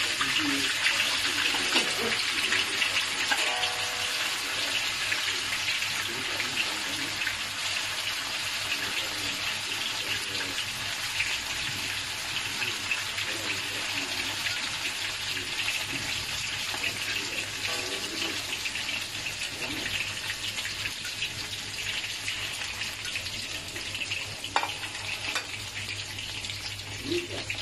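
Chicken meatballs deep-frying in hot oil in a wok: a steady, dense sizzle that slowly gets a little quieter. One sharp tap sounds near the end.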